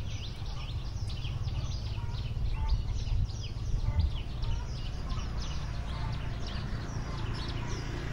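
A flock of small birds chirping: many short, quick, downward chirps overlapping without pause, over a low steady rumble.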